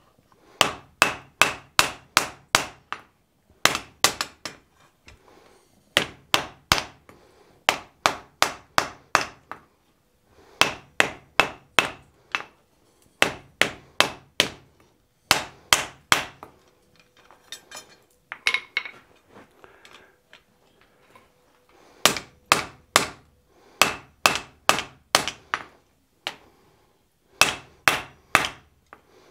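Blacksmith's hand hammer striking a red-hot wrought iron hammer head on the anvil, in runs of quick blows about three a second with short pauses between runs. These are light finishing blows at a lower heat that knock the scale off and leave a smoother finish.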